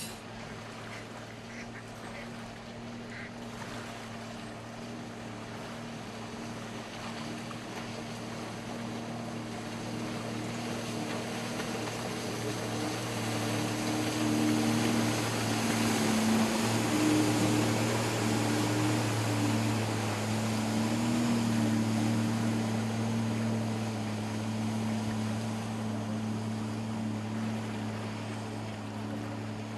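Watercraft engine running steadily over the hiss of water, getting louder toward the middle and easing off a little near the end.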